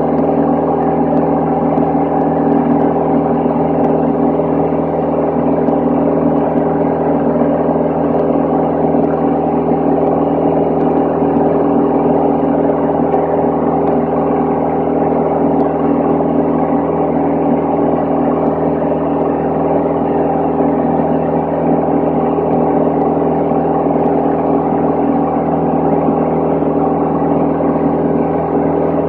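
Single piston engine and propeller of a Van's RV-10 light airplane in cruise, heard inside the cabin as a steady, unchanging drone with a humming pitch.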